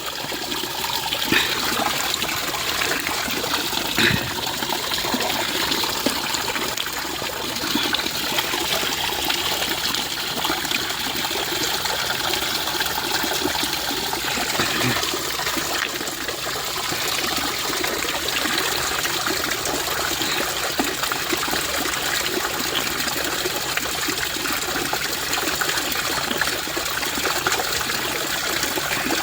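Water from a small hillside waterfall running and splashing down over rocks, a steady rush.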